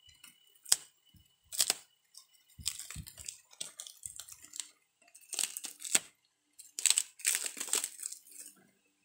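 Clear plastic wrap being pulled and torn open by hand, crinkling in irregular bursts with a few sharp snaps.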